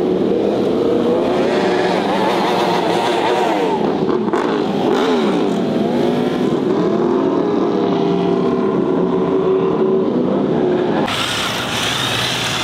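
Car engine revving hard, its pitch swinging up and down again and again as during drifting or a burnout. The sound changes abruptly near the end.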